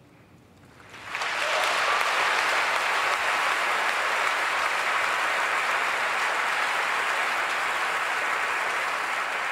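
Large audience applauding. The applause comes in about a second in and holds steady.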